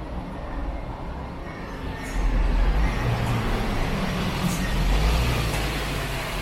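City street traffic, with a heavy road vehicle's engine rumble swelling about two seconds in and easing off near the end as it passes.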